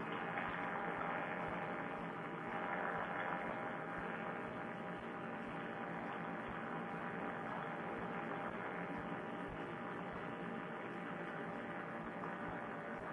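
Paramotor trike engine droning steadily in flight, heard through a Bluetooth helmet-headset microphone, so it comes across as a muffled, thin hum with no high end.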